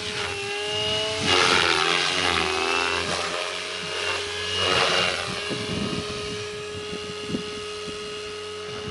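Electric SAB Goblin RC helicopter in flight during a test flight after repair: a steady high whine from its motor and rotors, swelling louder twice and shifting in pitch as it manoeuvres.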